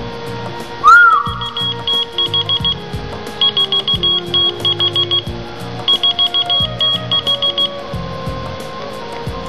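A short whistle that rises and falls, then a whistle-activated key-finder keychain answering with rapid high beeps in quick groups, in three runs of a second or two each. Background music plays throughout.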